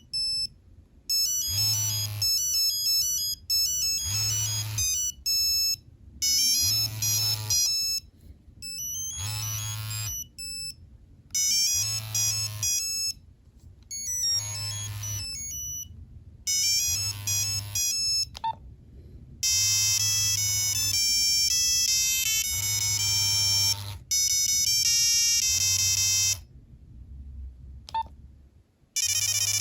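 Nokia 3390 mobile phone playing its monophonic ringtones through its built-in speaker: short electronic melody phrases repeat every two to three seconds with gaps between. About two-thirds of the way in, a longer, busier tune takes over.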